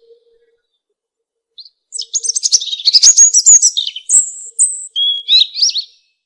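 European robin singing: after a pause of about a second and a half, one long phrase of quick, high warbling notes that sweep up and down, with two thin, very high notes in the middle and lower trills to finish.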